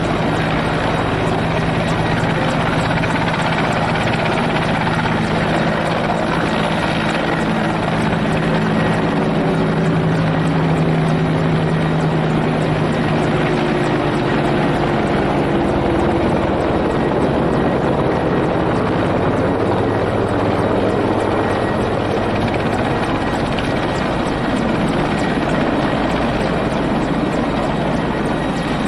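Mi-17 helicopter with its twin turboshaft engines and main rotor running steadily while it sits on the ground.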